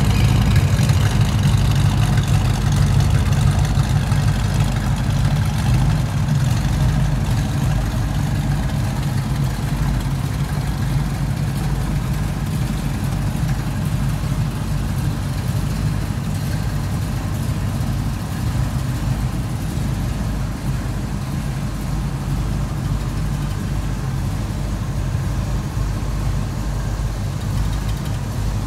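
A 1969 Ford Mustang Mach 1's V8 idling steadily through its dual exhaust, a deep rumble. It is a little louder for the first few seconds, then settles.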